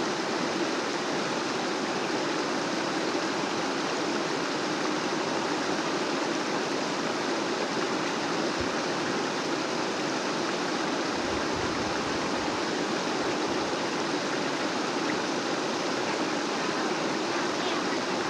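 Fast-flowing floodwater rushing, a steady, unbroken roar of water.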